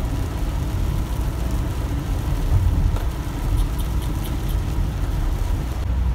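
Truck engine and tyre noise on a wet highway, heard from inside the cab while driving: a steady low rumble.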